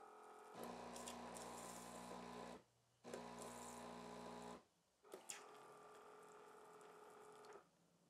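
Breville Barista Touch Impress espresso machine's pump buzzing quietly in two runs of about two seconds and a second and a half, with a short pause between them, as part of the automatic steam-wand purge. A faint click follows, then a fainter steady hum.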